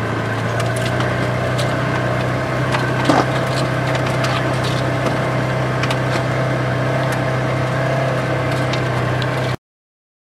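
A vehicle's engine running steadily, heard from inside the cab while driving over a rough grassy track, with scattered clicks and rattles from the ride. The sound cuts off suddenly near the end.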